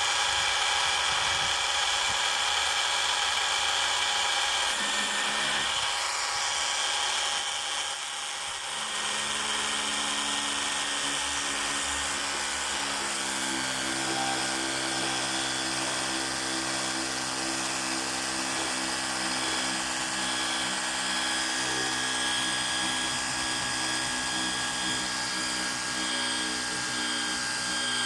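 Ryobi portable pressure washer's motor and pump running with a steady high whine while it pumps water through to prime. There is a short dip about eight seconds in, and a deeper hum joins about thirteen seconds in.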